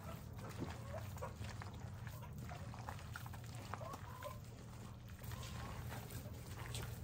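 Faint short animal calls, scattered chirps, over a steady low hum.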